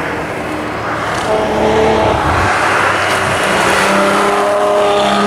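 Ferrari F12berlinetta's V12 engine accelerating out of a corner as the car comes past, its pitch climbing steadily and the sound growing louder.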